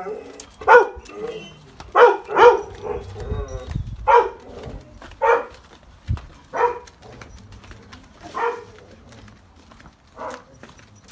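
A dog barking in short, high barks, about nine of them at uneven intervals, loudest in the first few seconds and growing fainter toward the end.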